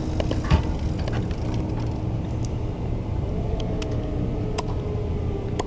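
Steady street-traffic rumble with a city bus's engine idling, with scattered light clicks and one sharp knock about half a second in.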